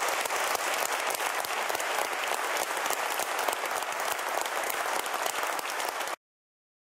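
Audience applauding steadily after a chamber-music performance; the applause cuts off abruptly about six seconds in.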